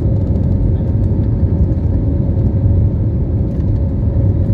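Steady low drone of a jet airliner's engines and airflow heard inside the cabin during the climb after take-off, with a faint steady hum above the rumble.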